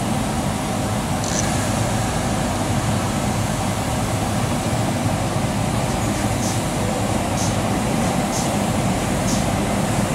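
E.444R electric locomotive standing at the head of its train with its onboard equipment giving a steady hum. In the second half there are short, high hissing puffs about once a second.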